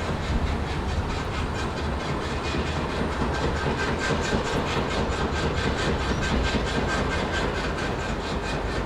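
Industrial machinery running steadily: a deep low rumble with a rapid, even clatter repeating several times a second, and a faint thin whine through the middle.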